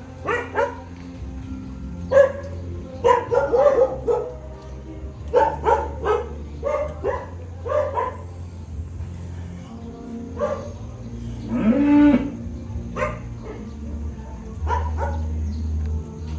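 Dairy cattle mooing: a string of short calls, with one longer call about twelve seconds in.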